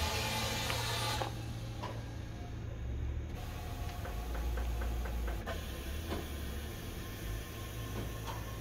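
Semi-truck's air suspension being raised: compressed air hissing, which cuts off about a second in, then a steady low hum from the idling truck with a short run of light clicks near the middle.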